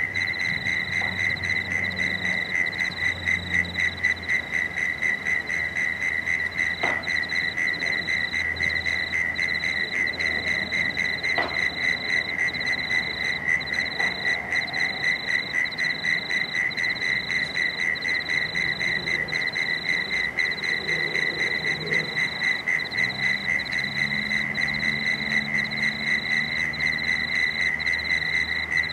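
Frogs calling in a steady chorus, a fast, even pulsing call that never lets up. A low hum joins in the background near the end.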